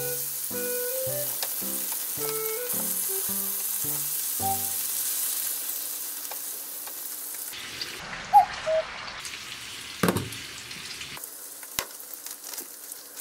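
Pork belly and onion skewers sizzling in a frying pan while being turned with chopsticks, with light plucked background music over the first half. In the second half the sizzle grows fainter and two sharp knocks sound, about two seconds apart.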